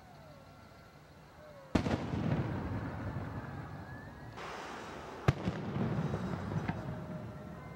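Two fireworks bangs about three and a half seconds apart, each a sharp crack followed by a rolling rumble. A hiss runs for about a second just before the second bang.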